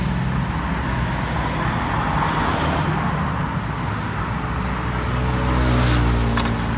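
Street traffic with a vehicle engine running, growing louder about five seconds in. Light, sharp clicks of a knife slicing thin strips off a peeled green mango sound over it.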